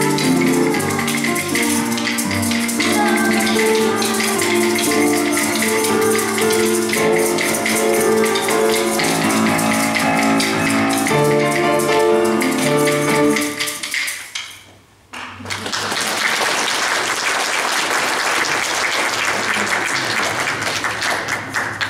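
Piano-led music with a rhythmic percussion beat plays and ends about fourteen seconds in. After a brief pause the congregation applauds.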